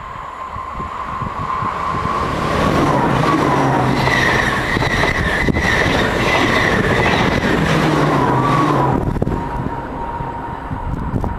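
Dutch NS ICM 'Koploper' electric multiple unit passing close by at speed: wheels running on the rails with a steady whine over the rumble, loudest for several seconds as the cars go by and dying away about nine seconds in.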